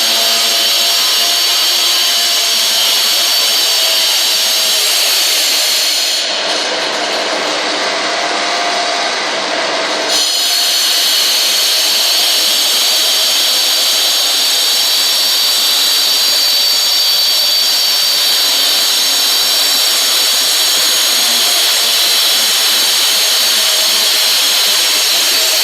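Makita wall chaser running steadily with a Kärcher vacuum drawing dust alongside it. For about four seconds in the middle the sound turns duller, then returns to the earlier sound.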